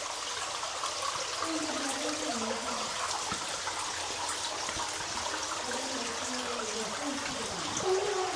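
Steady trickling and flowing of running water.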